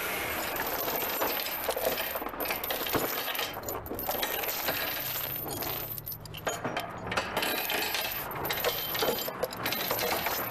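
Steel tie-down chain clinking and rattling in irregular bursts as it is handled on a wooden trailer deck.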